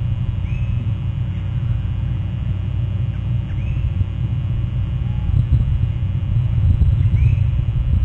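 Oystercatchers calling: three short, high whistled notes a few seconds apart, over a loud, steady low rumble.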